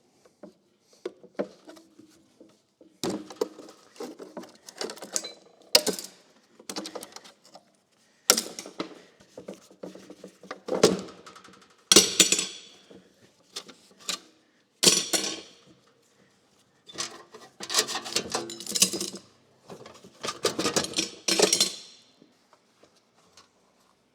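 Sheet metal and tools clattering, knocking and scraping in irregular bursts as the freshly formed floor pan panel is worked free of its forming tooling.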